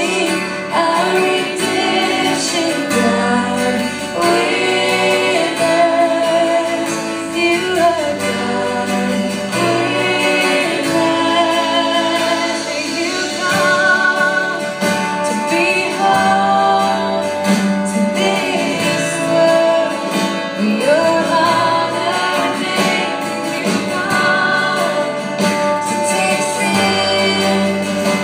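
Live worship band performing: a woman sings the lead melody into a microphone over strummed acoustic guitar, electric guitar and band accompaniment.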